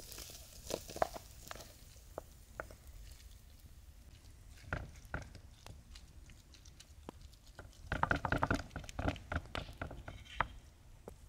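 A spoon scooping cooked rice into a paper-lined metal baking pan, then a wooden spoon spreading and pressing it flat: soft scrapes, rustles of the baking paper and light taps, with a denser run of quick rustles and knocks about eight seconds in.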